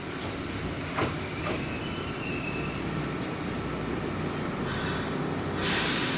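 Kintetsu 2000 series electric train with a steady low rumble, a sharp click about a second in and a faint brief high squeal; near the end a loud, steady hiss starts suddenly.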